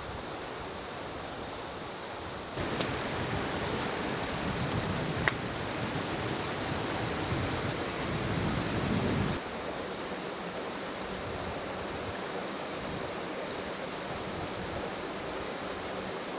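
Steady rush of a shallow mountain stream flowing over stones, louder from about two and a half seconds in until about nine seconds. A few sharp clicks sound near the start of the louder stretch.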